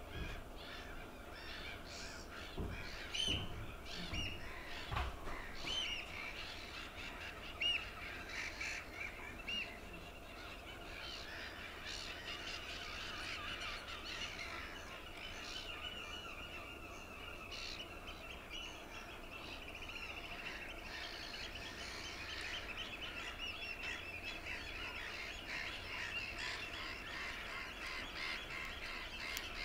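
Many wetland birds calling over one another in a dense, unbroken chorus of short overlapping calls, with a few low thumps in the first five seconds.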